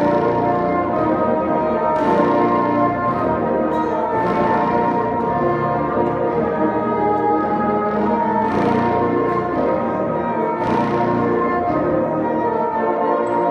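A bassoon ensemble playing together: several bassoons sounding sustained chords that move from one to the next.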